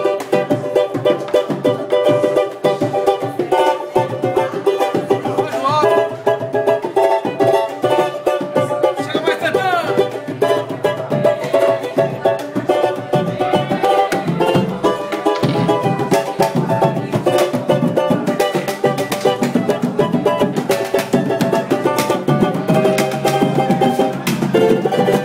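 Pagode samba ensemble playing a steady samba rhythm: a Brazilian banjo (cavaquinho-banjo with a side sound hole) strummed over hand drums, a repique de mão and a tantã.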